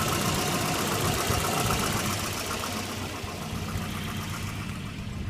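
1988 Volvo 240's B230F four-cylinder engine idling steadily at about 950 to 1,000 rpm, a little high according to the service manual.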